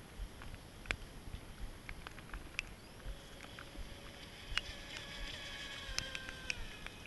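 Faint, distant whine of a small RC speedboat's brushless electric motor running at speed, starting about three seconds in, holding steady, then dropping away just before the end. Scattered sharp clicks and low buffeting on the microphone underneath.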